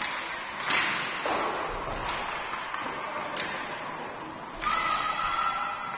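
Sharp knocks echoing around an ice hockey rink during a youth game, one about a second in and another near the end, the second followed by a steady high ringing tone for about a second.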